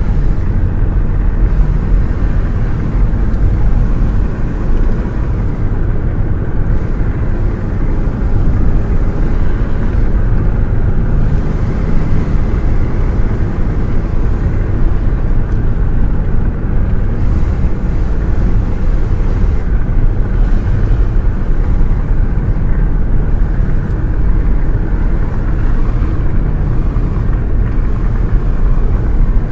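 Car sound: a loud, steady, low running noise that holds constant, with no rise or fall in pitch.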